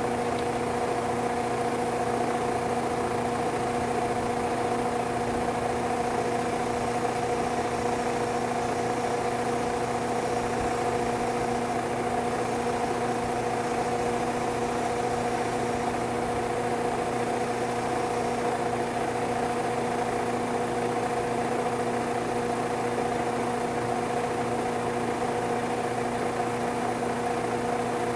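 Steady machine hum from a running motor, holding a few fixed pitches at an unchanging level.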